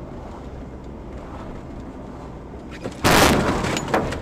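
Steady rumble of vehicle and wind noise. About three seconds in, a sudden loud crash lasts about a second, and there is another sharp bang just before the end.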